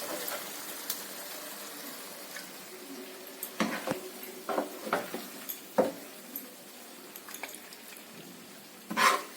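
Faint sizzle of the chicken in the pan dying away after the gas is turned off, then a serving spoon scraping and knocking against the pan and dish several times as the food is dished out, the loudest knock near the end.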